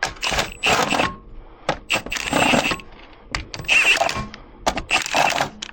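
Impact wrench running lug nuts onto a wheel in short, loud bursts, about one every second.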